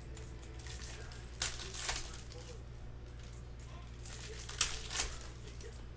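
Foil trading-card pack wrappers crinkling as the packs are handled and torn open, in a few short crinkles, two about a second and a half in and two near the end.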